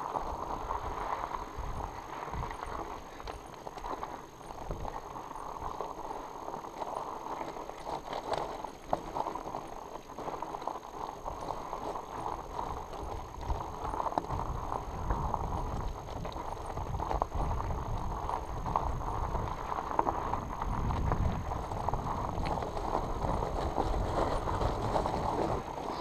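Tandem fat bike riding over loose rocky gravel: fat tyres crunching on stones, with a constant clatter of small knocks and rattles. A low rumble grows stronger about halfway through.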